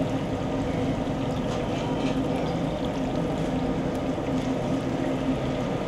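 Battered green chillies (mirchi bajji) deep-frying in a large iron kadai of bubbling oil, over a steady low rumble, with a few faint light clicks.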